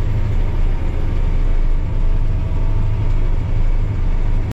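Steady low engine drone of a running vehicle, with a constant rumble underneath. It cuts off abruptly near the end.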